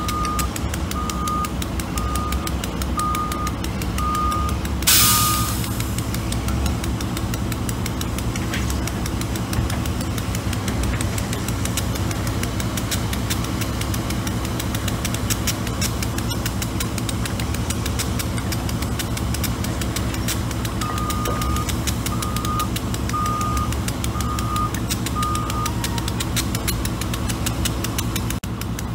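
Wheel loader's reversing alarm beeping about once a second in two short runs, at the start and again after about twenty seconds, over a steady diesel engine running. A sudden loud burst of noise about five seconds in is the loudest thing.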